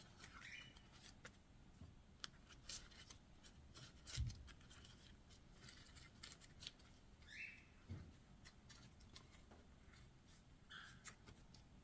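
Faint kitchen handling sounds: scattered light clicks and taps, with a soft thump about four seconds in and another near eight seconds.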